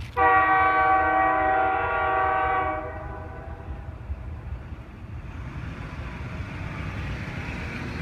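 CP Rail SD40-2 diesel locomotive's multi-chime air horn sounding one long blast of about two and a half seconds, starting and stopping sharply. It is followed by a steady rushing noise that grows louder toward the end.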